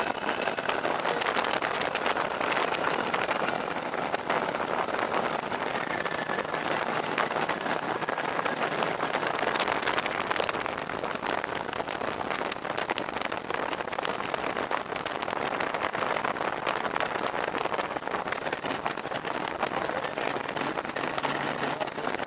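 Wind rushing over the microphone together with the engine of an open-cockpit ultralight aircraft, a Fox V4, running at low power through the landing and the roll along the runway. The high hiss of the wind eases off in the second half as the aircraft slows.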